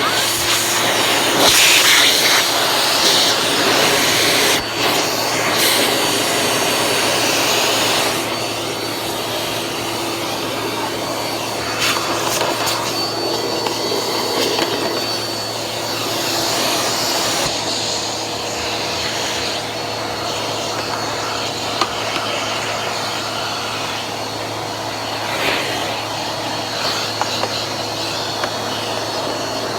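Vacuum cleaner running, a steady motor hum with a thin high whine over airy suction noise. It is louder for the first several seconds, then settles a little lower.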